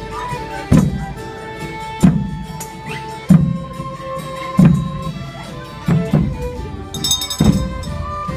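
Street folk band playing a traditional tune on fiddles, with a drum struck about once every second and a quarter as the loudest sound.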